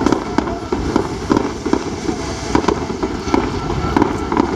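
Aerial fireworks going off in a rapid, irregular series of bangs, several a second.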